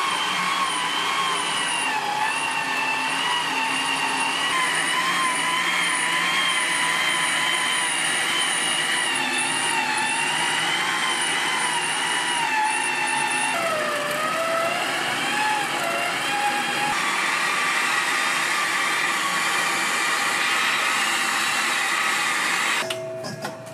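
An electric kitchen machine's motor running with a whine that wavers in pitch as its load changes, dipping lower for a few seconds about two-thirds of the way in, then stopping abruptly near the end.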